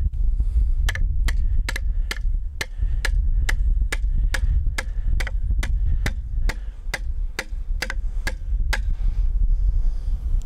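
Hammer tapping a pin into a hole drilled through a wooden fence post: a steady run of about twenty light blows, roughly three a second, that stops about a second before the end.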